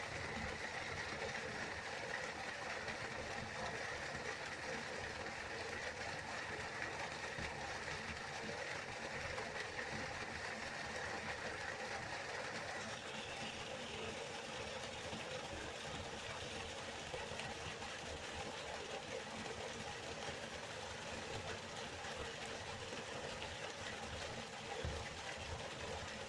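River water flowing steadily, with a slight change in its sound about halfway through.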